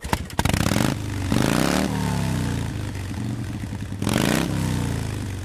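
Motorcycle engine running, with a few sharp clattering knocks at the start. It is revved twice, about a second and a half in and again about four seconds in, each rev climbing in pitch and then falling back to a steady idle.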